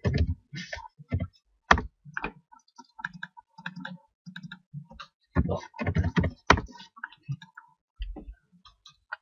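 Computer mouse clicks and keyboard keystrokes, irregular sharp clicks with a busier run of keystrokes around five to seven seconds in.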